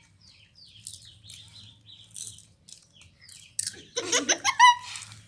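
Small birds chirping in short, scattered high calls. About four seconds in, a person breaks into a loud burst of laughter, the loudest sound here.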